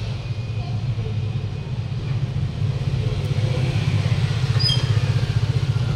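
A steady low rumble, getting slightly louder in the second half, with a brief high-pitched tone about four and a half seconds in.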